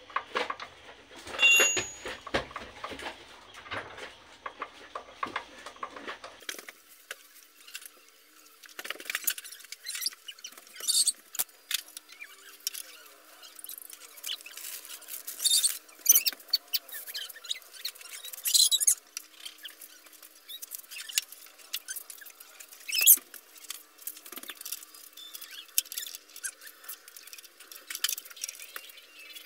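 Irregular metal clicks, taps and light clanks of hand tools and front-fork parts being handled on a small motorcycle, with a few louder knocks.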